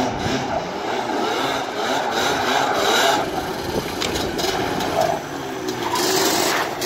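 Yamaha Banshee 350 quads' two-stroke twin engines revving up and down as they ride and drift, their aftermarket FMF and Pro Circuit exhausts giving a continuous two-stroke exhaust note that rises and falls.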